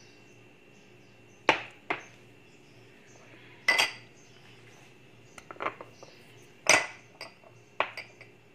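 Small glass bowls and a plate clinking and knocking against a countertop as they are handled and moved, several sharp knocks at irregular intervals.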